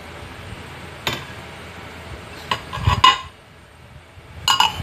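Stainless steel pot lid clanking against the rim of a stainless stockpot as it is handled and set on, with a cluster of sharp ringing metal clinks midway and another near the end.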